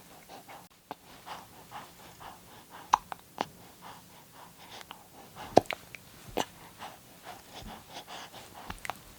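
Baby hiccupping: several short, sharp hiccups spaced irregularly, a second or a few seconds apart, with faint breathing sounds between them.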